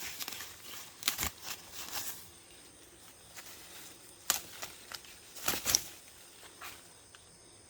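Dry Japanese Hulless popcorn stalks and husks rustling and crackling as the ears are picked by hand, in scattered short bursts, loudest about four and a half and five and a half seconds in.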